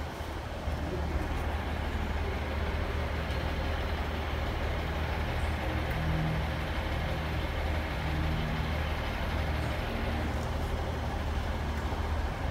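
ScotRail diesel multiple unit's engine running steadily, a low even drone with noisy rumble over it.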